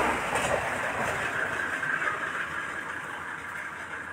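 Engine noise of a passing motor vehicle, fading away over a few seconds.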